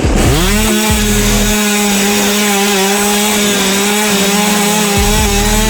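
A two-stroke chainsaw engine revs up sharply in the first half second, then runs at a steady high pitch at full throttle.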